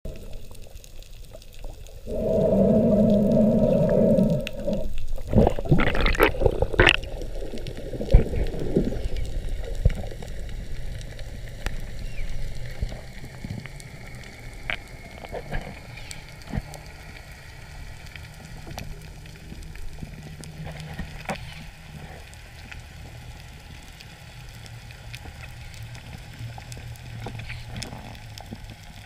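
Underwater ambience: a loud rushing noise for about two seconds near the start, a few sharp clicks and knocks after it, then a quieter low steady rumble of the water with scattered faint ticks.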